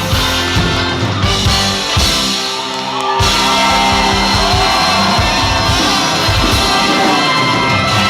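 Big band playing a pop song live, with drum kit; the band thins out briefly, comes back in full about three seconds in, and a singer's wavering voice rises over it in the second half.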